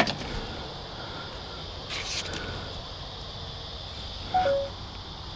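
Insects droning steadily at a high pitch, with a brief rustle about two seconds in and a short two-note falling whistle near the end.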